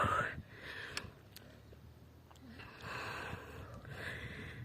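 A person breathing hard in a few heavy breaths, out of breath from pedalling a bicycle up a steep climb.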